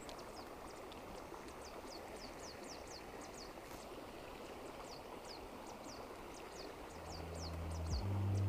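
Shallow, rocky river flowing steadily, with a quick run of short, high, falling chirps about three a second over it. Music comes in near the end.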